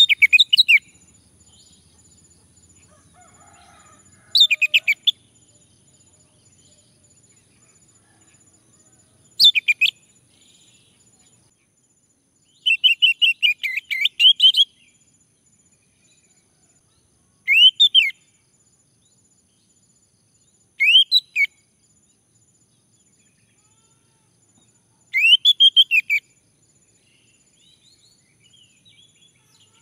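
Male orange-headed thrush singing: short bursts of quick, sweeping whistled notes every three to five seconds, with one longer, fuller phrase around the middle.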